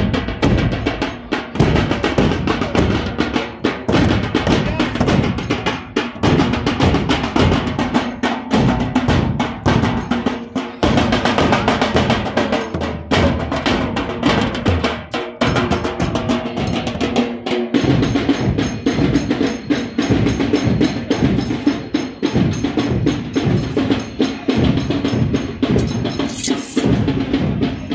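Procession drums beaten continuously in a steady marching rhythm: large handheld bass drums and stick-beaten side drums, with rolls.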